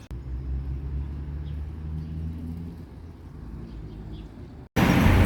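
Car on the road: a low, steady engine drone. Near the end it breaks off and jumps to much louder road and wind noise.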